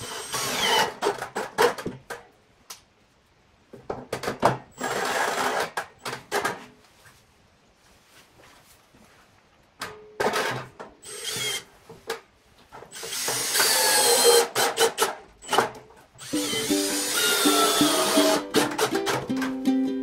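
Cordless drill running in five short bursts of a few seconds each, its motor speeding up and slowing down as it drills into a corrugated steel roof sheet. Plucked ukulele-like music comes in over the last few seconds.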